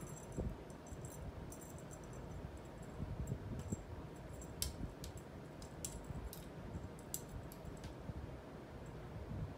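Feather wand cat toy being swung and dragged about on a carpet: faint, scattered jingling and light ticks, with a handful of sharp clicks in the middle.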